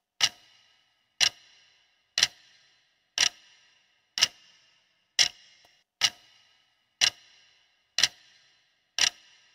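Clock-tick countdown timer sound effect: ten sharp ticks, one a second, each with a short ringing tail, marking the seconds running out.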